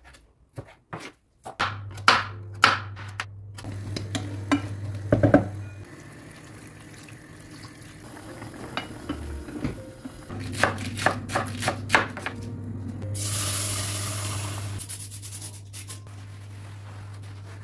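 Household kitchen handling sounds: dishes, pots and utensils clinking and knocking over a steady low hum, with about two seconds of hissing a little past the middle.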